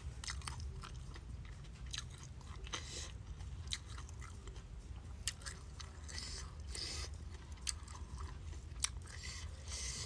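Close-up chewing of a person eating rice, sambal and raw leunca berries by hand: a string of wet mouth clicks and short crunchy bursts, over a low steady rumble.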